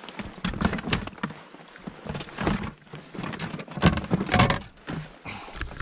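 A loaded folding canoe being pushed off a rocky shore: irregular knocks and scrapes of the hull and gear, with lapping water and wind on the microphone.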